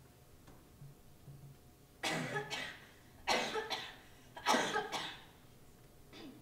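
A girl coughs three times, about a second apart, each cough a short harsh burst.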